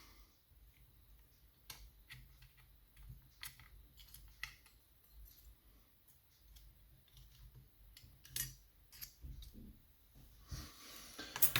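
Faint, scattered small clicks and light scrapes of lockpicking tools working inside a lever mortice lock, with a louder click a little past the middle and another near the end.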